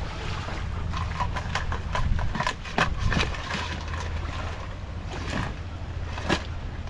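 Metal boil pot and its straining lid clanking and knocking as the pot is lifted and the cooking liquid strained off, over a steady low rumble.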